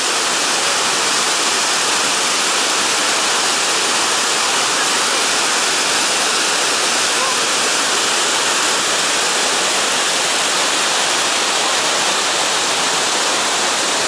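Iguazu Falls: a massive waterfall plunging close by into its gorge, a loud, steady, unbroken rush of falling water.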